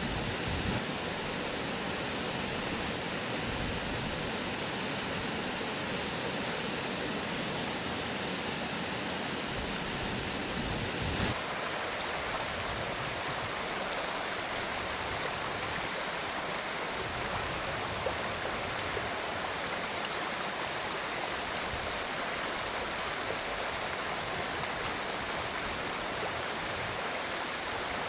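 Steady rush of a mountain stream's flowing water. The sound changes abruptly about eleven seconds in, becoming a slightly thinner, softer rush.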